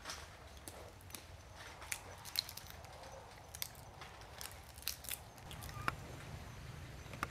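Irregular sharp clicks and cracks of long-tailed macaques cracking and chewing peanuts in their shells.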